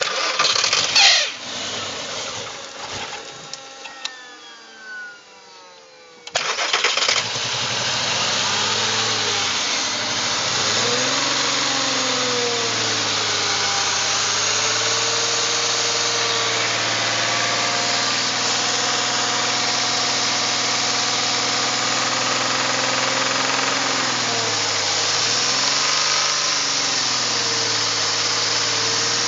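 2001 VW Jetta's 12-valve VR6 engine starts, catching suddenly about six seconds in, then runs on at idle. Its speed dips and recovers a few times. The owner reports the engine has misfiring cylinders.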